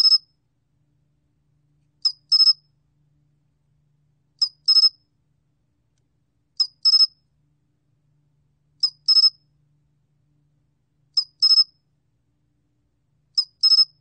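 Pine cricket (솔귀뚜라미) calling at 21 °C: short high chirp groups repeating about every two and a quarter seconds, seven in all, each a quick single note followed by a rapid double chirp.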